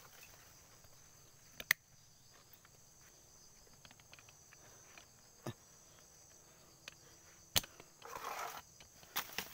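Faint steady high-pitched drone of insects such as crickets, with a few sharp clicks, the loudest near 2 s and near 8 s in, and a brief rustle just after 8 s.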